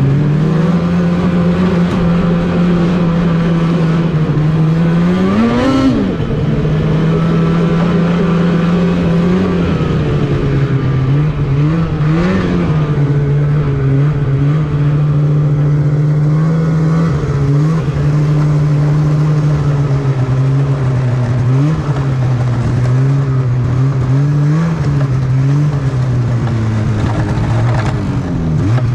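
Snowmobile engine running steadily under the rider, with short throttle surges about six and twelve seconds in. The engine note steps lower twice as the sled slows, then rises and falls in several quick blips near the end.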